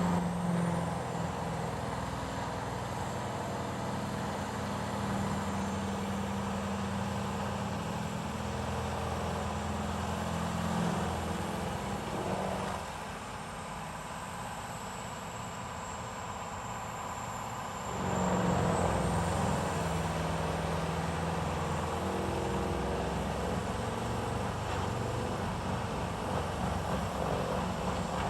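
Machine tool running: a steady motor hum with a faint high whine, the level dropping for a few seconds about halfway through and then coming back up.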